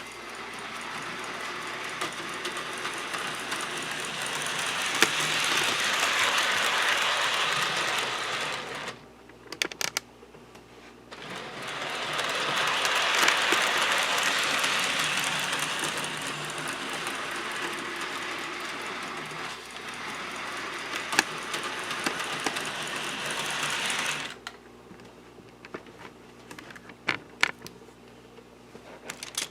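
HO scale model train running on its track: the small locomotive's motor whirs and its wheels rattle over the rails, growing louder twice as it passes close. It drops away briefly about nine seconds in and again near the end, leaving scattered clicks.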